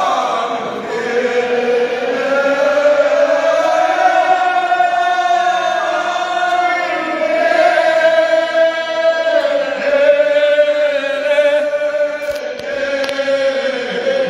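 A man chanting a slow mourning lament in long, held, wavering notes, with no breaks in the chant.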